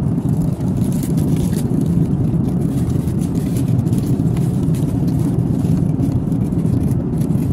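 Airliner cabin noise in flight: a steady, even low roar from the engines and air, with faint crinkles of the wrapped meal items being handled.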